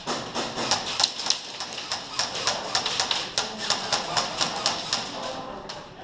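Airsoft gunfire in a close plywood arena: a rapid, irregular run of sharp clicks and snaps, several a second, from guns firing and BBs striking the plywood walls.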